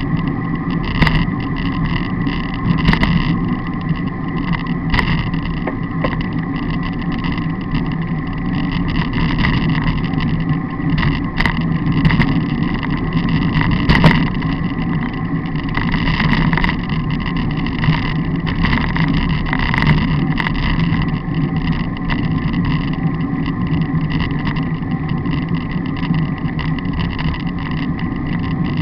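Bicycle ride on a rough farm track, heard from a handlebar-mounted camera: a steady rumble of tyres and wind on the microphone, with short knocks and rattles as the bike goes over bumps.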